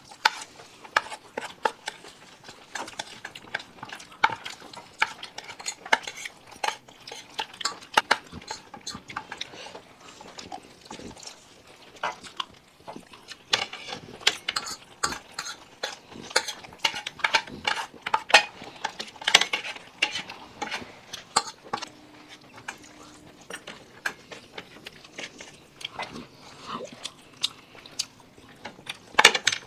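Spoons clinking and scraping against plates: many quick, irregular clicks and taps of cutlery on crockery.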